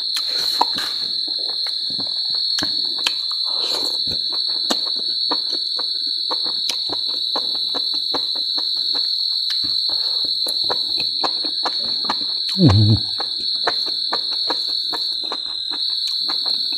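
Insects chirring in a steady high-pitched drone, with close-up chewing: many small wet clicks and smacks. There is one brief louder low sound about three-quarters of the way through.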